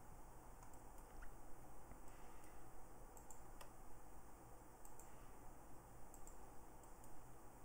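Faint, scattered clicks of a computer mouse and keyboard, sharp and irregular, over a low, steady background hiss.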